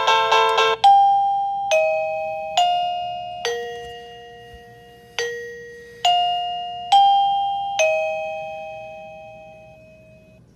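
Wireless caregiver pager receiver playing a chime ringtone through its small speaker. A fast electronic jingle ends about a second in, then a slow doorbell-like melody of eight struck notes follows, with a pause near the middle, each note dying away and the last one fading out.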